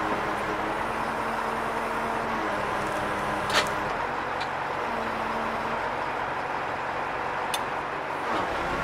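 Truck engine running to drive a loader crane's hydraulics while it handles a heavy log: a steady drone with a hum that shifts up and down in pitch as the crane works. A sharp knock comes about three and a half seconds in, and a fainter one near the end.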